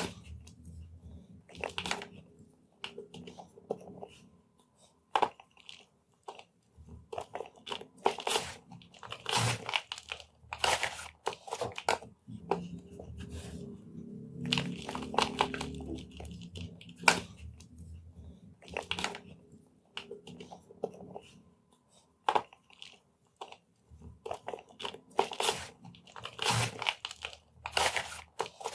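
Blocks of gym chalk being crushed and crumbled: a run of irregular, sharp crunches of varying loudness with short pauses between them.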